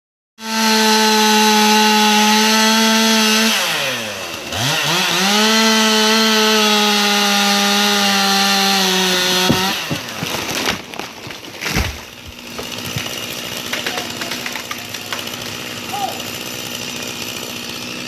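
Chainsaw running at full throttle, cutting, with a brief drop and recovery in revs about four seconds in, then cutting off near ten seconds. A few loud cracks and thumps follow as the cut section of the leaning tree comes down, then a fainter steady hum remains.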